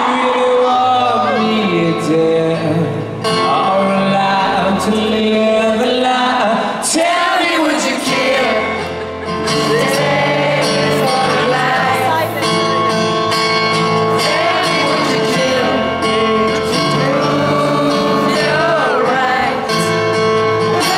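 Live acoustic rendition of a rock song: acoustic guitar chords ring out under wordless sung melody.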